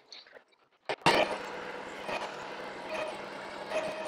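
Work Sharp Ken Onion Edition electric belt knife sharpener with its blade grinding attachment, switched on with a click about a second in, then its motor and abrasive belt running steadily.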